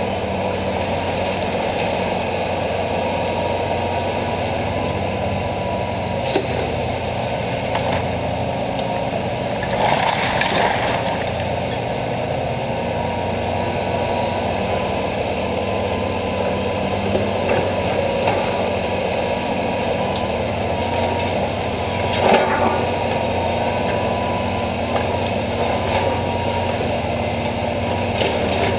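Demolition excavator's diesel engine running steadily, with a constant high whine over it. Twice, about a third and three-quarters of the way through, a burst of crunching masonry as the machine breaks into the brick building.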